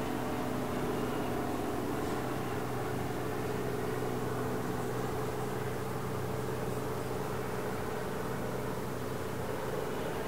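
Steady mechanical hum: a low drone with a few held tones over a even background noise, with no calls from the nestlings.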